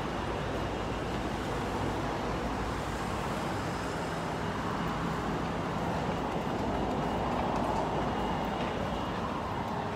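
Steady road traffic noise, a continuous even hum and hiss of passing vehicles, growing slightly louder about seven seconds in.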